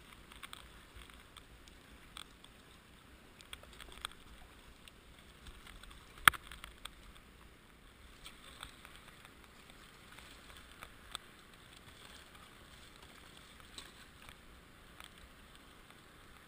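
Faint water sounds of a canoe being paddled: scattered small splashes and drips from the paddle, with one sharp knock about six seconds in.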